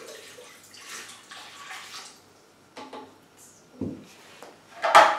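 Water poured from a measuring jug into the stainless-steel bowl of a Krups Prep & Cook kitchen machine, splashing for about two seconds. A few knocks follow, the loudest near the end.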